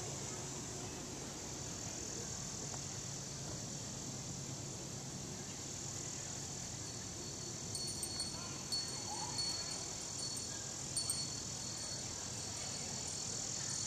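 Steady high-pitched chorus of crickets and other insects on a summer evening, with sharper repeated chirps coming in from about eight seconds in.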